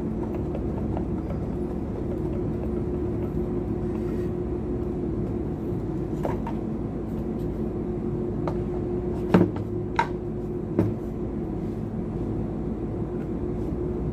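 Screws being fitted back into an electric kettle's housing: a few light clicks and taps of the tool and parts, the sharpest about nine and ten seconds in. Under them runs a steady low hum.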